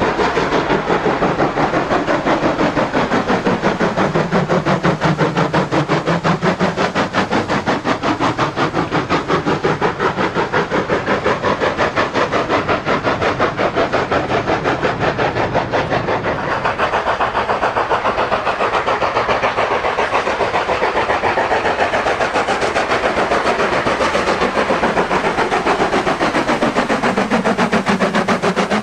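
Model railway train running on the layout: a fast, steady clicking of wheels over the track, with a motor whine that falls and rises in pitch as the train's speed and distance change.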